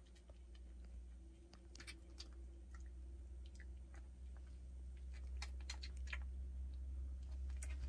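Newborn puppies suckling at their mother: faint, irregular wet clicks and smacks over a steady low hum.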